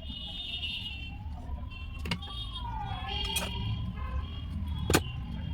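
Mahindra Bolero Neo's engine running with a steady low rumble and a faint tone wavering up and down. Two sharp clicks come about two seconds in and near the end; the second is the loudest sound.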